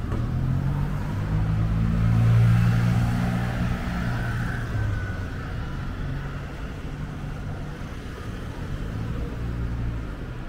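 A motor vehicle passing close by on the street. Its engine hum rises to a peak about two seconds in, then fades as it drives away.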